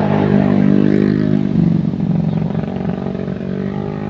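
A loud engine running, its pitch shifting about one and a half seconds in.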